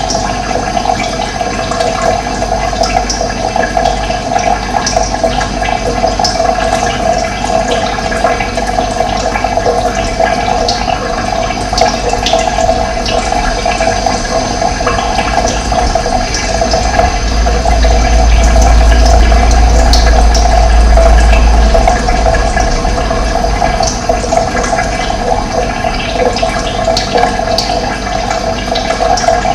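Running water flowing steadily, a dense rushing sound. A low rumble swells and makes it louder for a few seconds past the middle.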